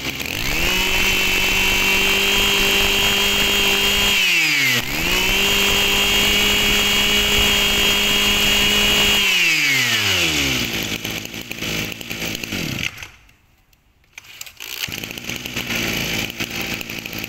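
Echo 26 cc two-stroke brush cutter engine revved up to a steady high whine. It dips briefly about four and a half seconds in and revs back up, then drops away and winds down to a stop.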